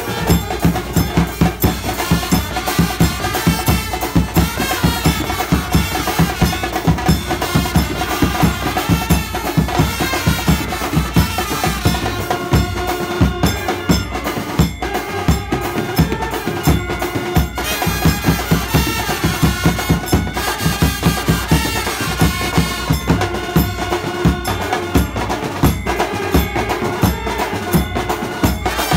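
Indian brass band playing: trumpets and saxophones carry a wavering melody together over a fast, driving drum beat.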